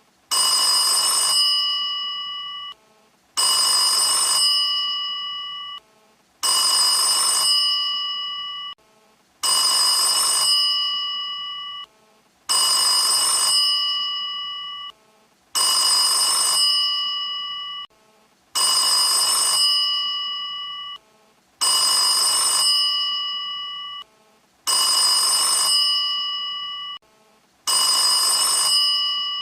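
Vintage telephone bell ringing: ten even rings about three seconds apart, each a rapid metallic trill that rings on and fades before a short pause.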